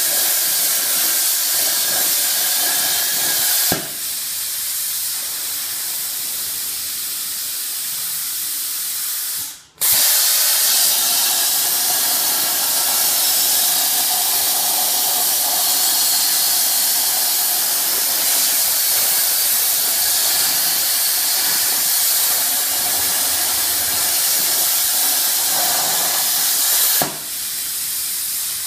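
CNC plasma cutter torch hissing steadily as it cuts. About 4 s in and again near the end there is a click and the hiss drops a little. Just before 10 s it cuts out completely for a moment, then starts again louder.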